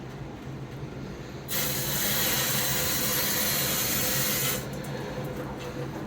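A steady rushing hiss, like pressurised water or air flowing through a plumbing valve or fitting, that starts abruptly about a second and a half in, runs for about three seconds and cuts off abruptly.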